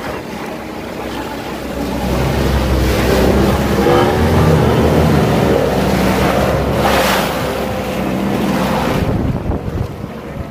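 Speedboat engine running as the boat comes past close by and pulls away, growing louder about two seconds in and fading near the end. Its wake rushes and splashes against the channel's concrete walls, loudest about seven seconds in.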